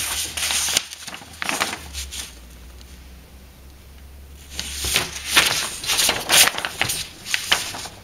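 Paper rustling as a large folded printed chart is unfolded and handled, in two spells: one at the start, lasting about two seconds, and a second from about four and a half seconds in until near the end.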